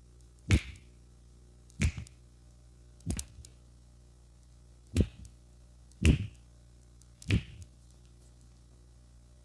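Six sharp hand strikes of a barber's percussive head massage, each a single slap followed by a softer second tap, coming about one to two seconds apart.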